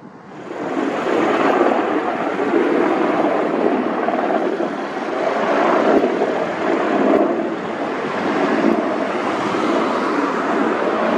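Erickson Sikorsky S-64 Skycrane twin-turboshaft helicopter flying close by: loud, steady rotor and turbine noise that swells over the first second and then holds.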